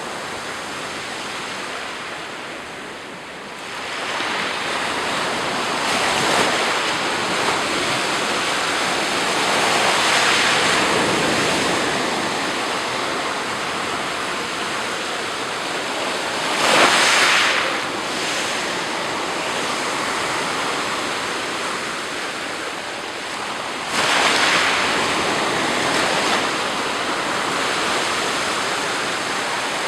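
Black Sea surf: small waves breaking and washing on the shore, the noise swelling with each wave, with a sharper, louder break at about the middle and another a little later.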